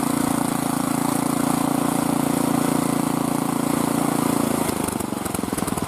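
An engine running steadily, then dropping to a slower, pulsing idle about four and a half seconds in.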